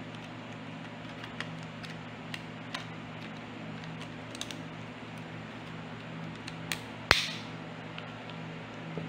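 Small plastic clicks and handling noises as a DJI Osmo Action camera is fitted into its plastic frame case. A sharp snap about seven seconds in is followed by a brief scrape. A steady low hum runs underneath.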